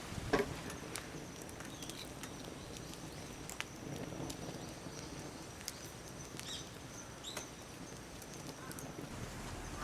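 Quiet outdoor ambience with a few short bird chirps and a faint high steady tone, over scattered small clicks.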